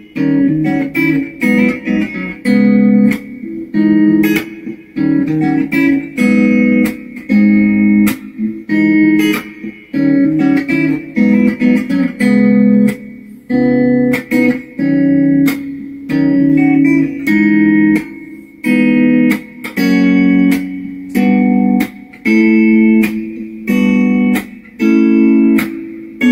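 Semi-hollow Telecaster-style electric guitar playing a common chord progression with a melody over it: a steady run of plucked chords, each ringing briefly before the next, with the last chord left ringing at the end.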